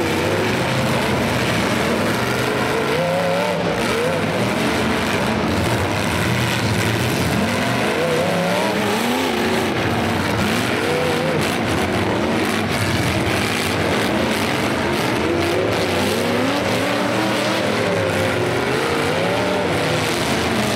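Several demolition derby cars' engines revving over one another, their pitch repeatedly rising and falling as the cars accelerate and back off on the dirt track.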